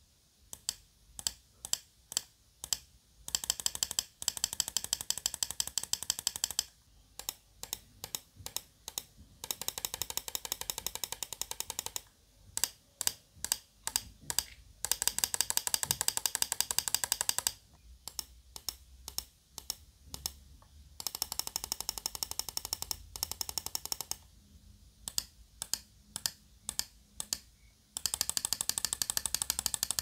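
Gaming-mouse microswitches clicking: an HCNHK switch in the left button and a stock Asus ROG switch in the right button, pressed for comparison. Runs of separate crisp clicks alternate with bursts of rapid clicking lasting two to three seconds each.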